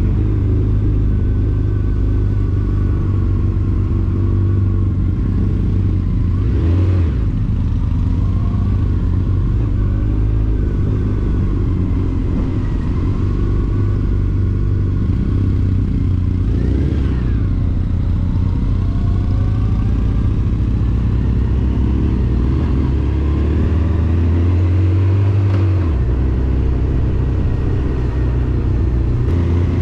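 Motorcycle engine running at a steady riding pace, mixed with road and wind noise, with two brief swells of noise about 7 and 17 seconds in.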